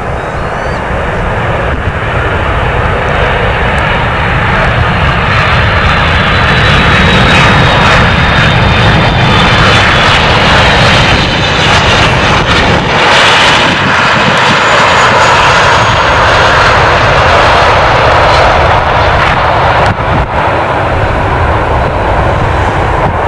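Airbus A330 airliner's twin turbofan engines flying low past on landing approach: a loud jet rumble that builds over the first several seconds and then holds, with a high engine whine sliding down in pitch as the aircraft passes.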